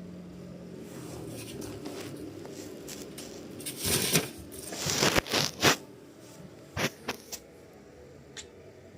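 Hands handling a computer during a RAM upgrade: a run of scraping and rustling with several sharp clicks about four to seven and a half seconds in, after a faint low hum dies away early.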